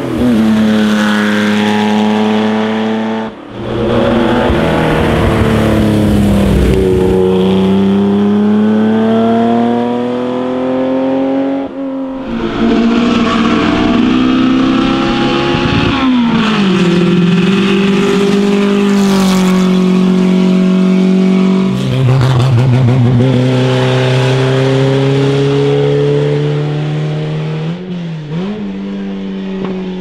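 Classic racing cars driven hard uphill one after another, engines at full throttle. Each pitch climbs steadily, then drops sharply at a gear change or a lift for a corner, several times over.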